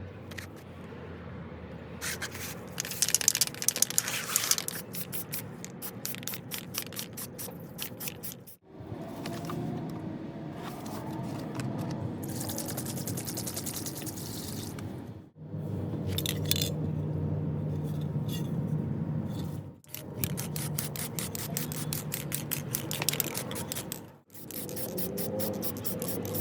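Rapid, repeated scraping strokes on the fan's rusty metal parts, in several runs that stop and start abruptly.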